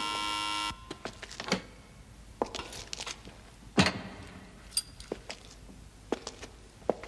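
Electric buzz of a door-opening mechanism for under a second as the button is pressed. Then scattered clicks and knocks, with one loud thump about four seconds in.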